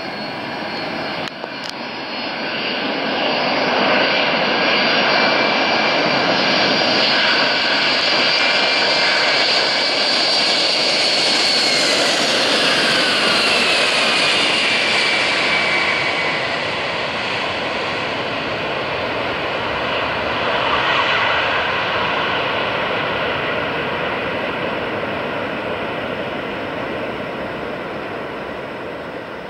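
Boeing 747 jet engines as the airliner comes in to land. The roar builds and is loud as the plane goes by, with a high whine that falls in pitch. It swells again briefly about twenty seconds in, then fades away.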